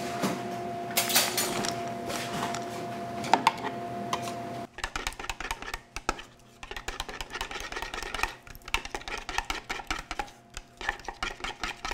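Spoon stirring a thick sauce in a plastic measuring cup, clicking and scraping rapidly against the sides from about five seconds in. Before that there is a faint steady tone with a few knocks.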